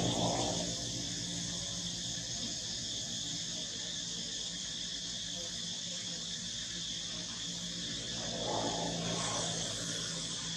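Steady outdoor insect chorus, an even high-pitched buzzing, over a low hum. A soft swell of rushing noise rises and fades about eight and a half seconds in.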